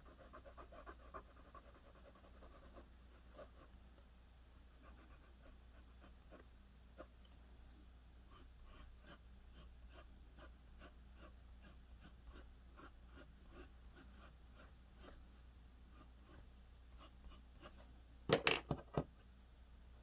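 Pencil scratching on paper in short, quick hair strokes, rapid at first and then in spaced single flicks. Near the end comes a brief louder clatter of a few knocks.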